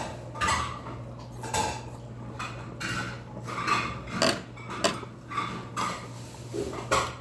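Eating sounds close to the microphone: chewing at an even pace, with a few sharp clicks of metal chopsticks against the dishes.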